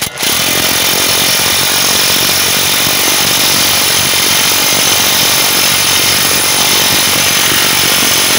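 Impact wrench running steadily on a lug nut threaded against a wheel stud installer, drawing a new wheel stud into the hub. It starts just after the beginning and runs without a break.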